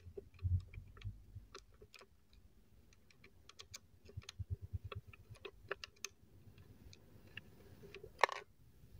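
Light, irregular clicks and taps of small plastic and metal parts being handled as a small nut is fitted onto the stand of a mini LED disco-ball light, with a short louder rub near the end.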